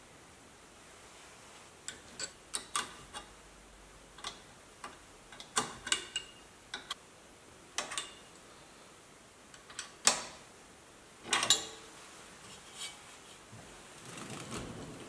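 Scattered metallic clicks and taps of a wrench working a steel brake line fitting on a car's front strut, irregularly spaced, with the sharpest click about ten seconds in.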